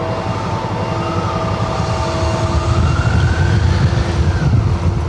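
Suzuki V-Strom 650's V-twin engine running at low speed as the motorcycle rolls along, its pulsing getting louder about three seconds in. A thin wavering tone rises and fades in the middle.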